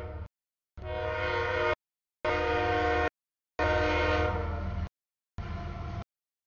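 Freight locomotive's air horn sounding as the train reaches a grade crossing: the crossing warning. It comes in about five blasts of roughly a second each over the engine's low rumble, with the sound cutting off completely between them, and the last blast is weaker.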